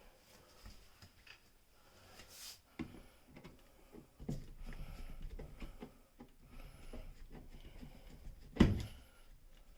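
Screwdriver backing out the screws of a light switch: scattered small clicks and scrapes of metal and plastic, with one sharp knock near the end.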